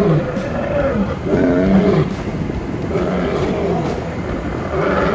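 Lion growling and roaring, several deep calls one after another with a low rumble underneath.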